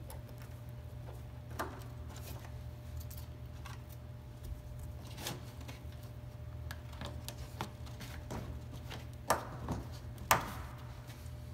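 Scattered light clicks and knocks of a plastic wheel-well liner being fitted and its plastic push-pin clips pressed in, with two sharper snaps about nine and ten seconds in. A steady low hum lies under it.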